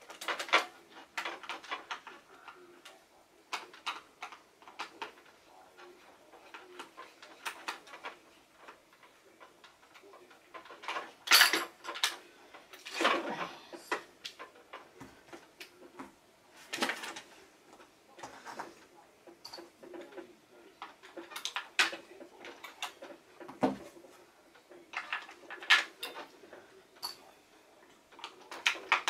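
Small screwdriver working the screws of a hard plastic toy vehicle, with scattered clicks, scrapes and plastic knocks as the toy is handled; a few louder clattering knocks come around the middle.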